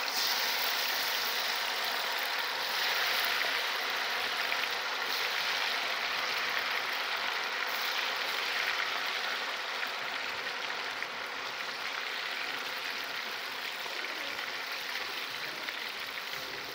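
Chicken kabab pieces deep-frying in hot oil, a steady sizzling hiss that eases slightly toward the end.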